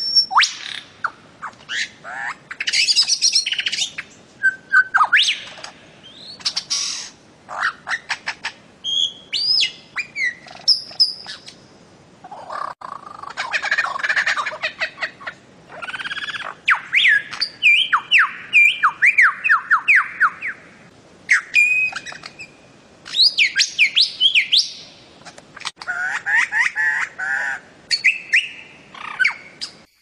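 Bird-of-paradise calling: a busy run of loud squawks and sharp chirps, many in quick series of falling notes, with brief pauses between phrases.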